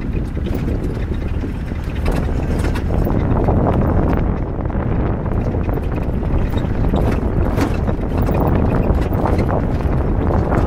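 Wind buffeting the microphone over the rumble of an open jeep driving on a bumpy dirt road, with irregular knocks and rattles from the vehicle. It gets louder about two seconds in.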